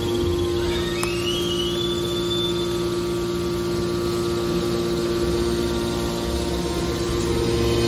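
Hydraulic waste metal baler running, its hydraulic power unit giving a steady hum, with a brief rising squeal about a second in.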